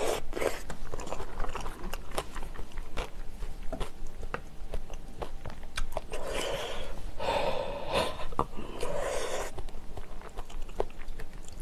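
Close-miked chewing and mouth sounds of someone eating spicy jjambbong broth with rice, with many small clicks of a spoon against the bowl. Two longer noisy stretches come about six and eight seconds in.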